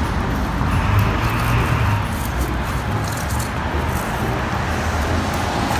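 Street traffic: a car passing on the road, over a steady low rumble.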